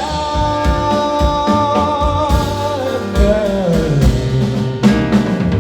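Live band music: a held chord over drums, with one sustained line sliding downward about three seconds in.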